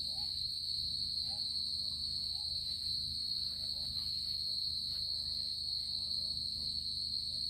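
Night-time insect chorus: a continuous high-pitched drone that holds steady throughout, over a low steady rumble.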